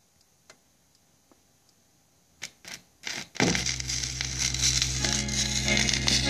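Turntable stylus set down on a homemade AudioDisc lacquer record: a few clicks as the needle lands about two and a half seconds in, then loud surface hiss and crackle from the groove, with the recording's music starting under the noise.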